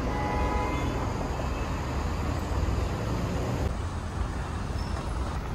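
Road traffic at a busy city intersection: a steady rumble of passing vehicles, with a brief pitched whine in the first second.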